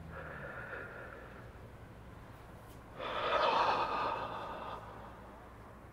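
A man breathing out: a faint breath at the start, then a long, louder breathy sigh from about three seconds in that lasts under two seconds, over a steady low hum.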